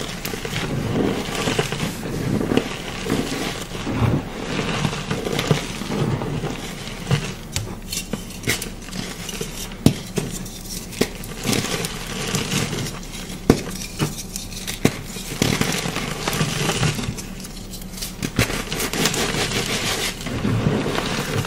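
Chalk crumbling and cracking as it is crushed: a continuous crunchy grinding with many sharp little snaps, a few of them louder, about ten seconds in and again a few seconds later.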